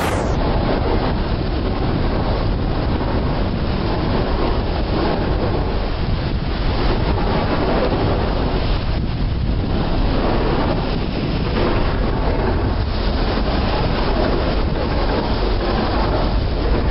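Long-tail boat under way: a steady engine drone mixed with rushing water, and wind buffeting the microphone.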